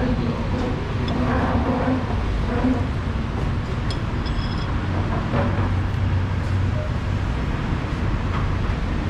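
Steady low rumble of background road traffic, with faint voices and a few light clicks.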